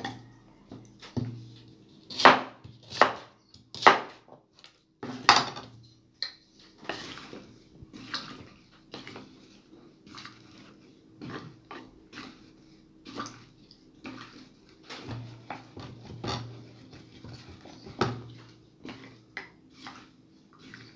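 A few sharp knocks in the first five seconds as apple pieces go into a large glass jar, then a wooden spatula stirring the apple chunks in brown-sugar water, with small knocks against the glass and sloshing.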